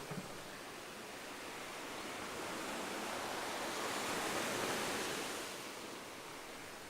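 Ocean surf washing in, a steady rush that swells midway and slowly fades again. A couple of short knocks sound right at the start.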